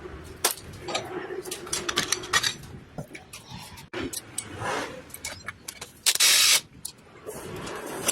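Gearbox parts and tools being handled in a workshop: many sharp metal clicks and clinks, with a loud hiss lasting about half a second a little after six seconds in.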